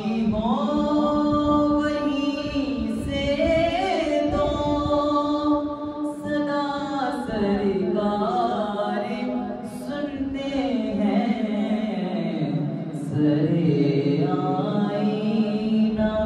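A boy singing a naat, an Urdu devotional song, into a handheld microphone, with long held notes that slide from pitch to pitch.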